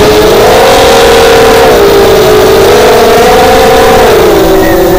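The four brushless motors and propellers of an FPV racing quadcopter (Lumenier 2206 2000 kv motors with HQProp 5x4.5 bullnose props on 4S), heard loud and close from the craft's own camera. The whine rises and falls with throttle and drops lower near the end.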